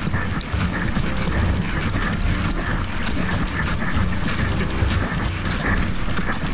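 A large vehicle engine running with a steady low rumble, with clatter and rustling over it.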